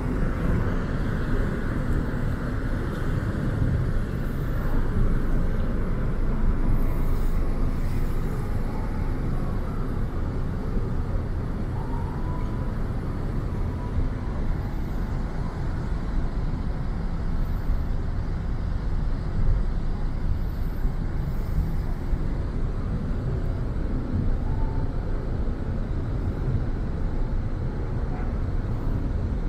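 Steady low rumble of a large car ferry under way as it pulls away from the pier, heard from its open upper deck.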